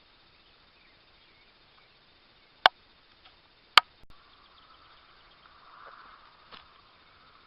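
Two sharp clicks about a second apart over a faint background hiss.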